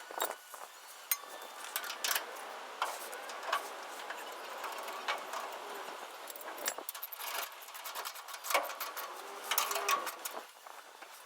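Scattered metallic clinks and clicks of hand tools and bolts being handled while bumper brackets are bolted on, irregular and unevenly spaced.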